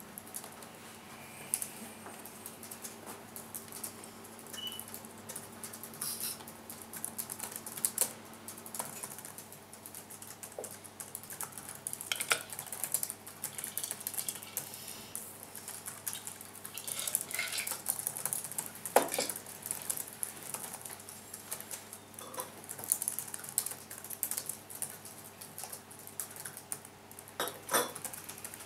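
Several people typing on laptop keyboards: a dense, uneven patter of key clicks, with a few louder clicks now and then.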